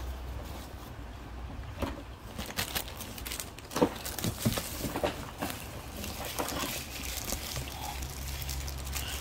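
Clear plastic packaging crinkling and rustling as plastic-wrapped pouches are handled in a cardboard box, in scattered short crackles mostly between about two and seven seconds in, over a low steady hum.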